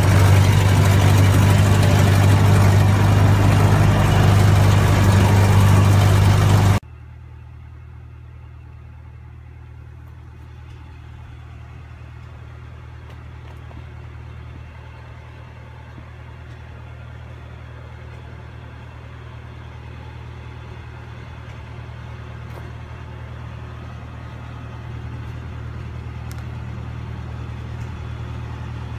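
Tractor engine running steadily with a deep hum, loud and close for the first seven seconds, then dropping suddenly to a quieter engine hum that slowly grows louder.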